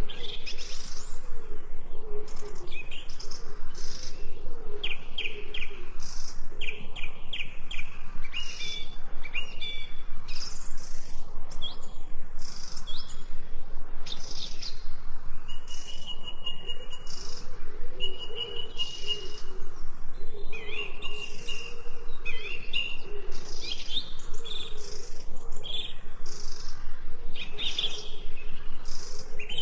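Several small songbirds chirping and trilling in a busy, overlapping chorus, with short repeated high calls and a few longer steady whistled notes, over a soft background hiss.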